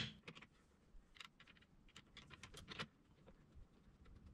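Faint, irregular metallic clicks of nuts being spun on by hand onto the bolts of a snowmobile ice-scratcher mounting block on the suspension rail.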